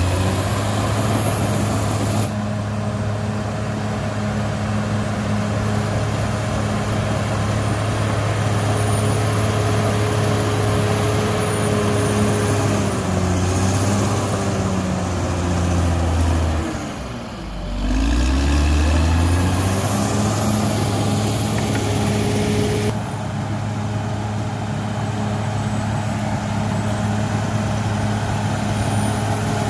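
Caterpillar D6R XL bulldozer's diesel engine running steadily under load with a faint whine over it. About 17 s in, the engine note drops and then climbs back up.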